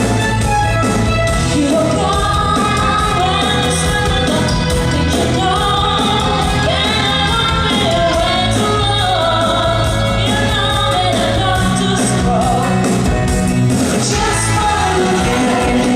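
Live performance of a pop musical-theatre number: women's voices singing over instrumental accompaniment with a steady, pulsing bass line.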